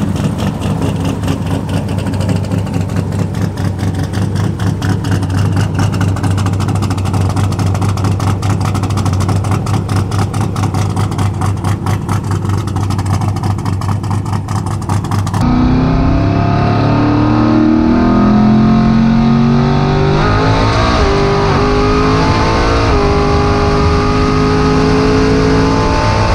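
Twin-turbo 427ci LS V8 idling with a fast, lumpy, even pulse. About fifteen seconds in it cuts to a car engine pulling hard under acceleration, its pitch climbing and dropping back at gear changes, over road and wind noise.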